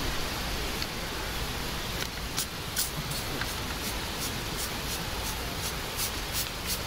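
Hand-held spray bottle of insect repellent being pumped in a quick series of short hissing squirts, about two or three a second, starting a couple of seconds in.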